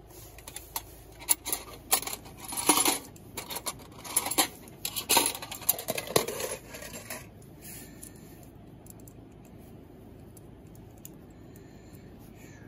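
Metal chopsticks clinking and scraping against their metal carrying case as the case is opened and the chopsticks are taken out: a string of sharp clicks and scrapes over about the first seven seconds.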